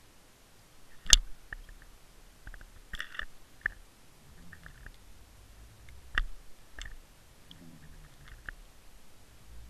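Irregular sharp clicks and knocks picked up underwater through a Water Wolf fishing-line camera's housing as the rig swings on the line, over a faint low rumble. The loudest knock comes about a second in and another strong one near six seconds.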